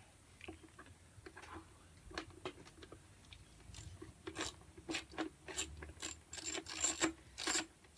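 Ratchet wrench clicking as a bolt is worked loose on a motorbike. The clicks are sparse and faint at first, then come faster and louder from about halfway in.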